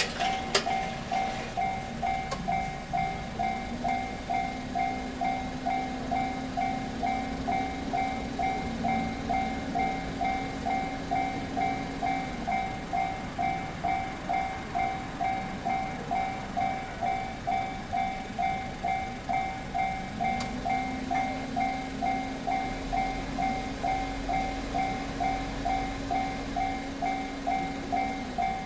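Japanese railroad crossing's electronic warning bell ringing steadily at about two dings a second, signalling that a train is approaching. Twice, a low hum rises, holds for several seconds and falls away under the bell.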